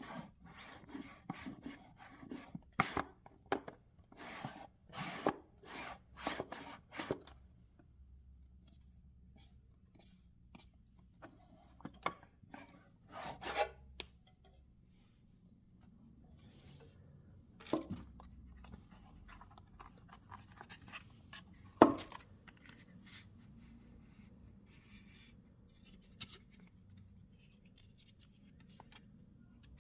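Packaging and a watch being handled during unboxing: a quick run of short rustling, rubbing strokes, then scattered scrapes. Later come two separate sharp clicks, the second the loudest sound.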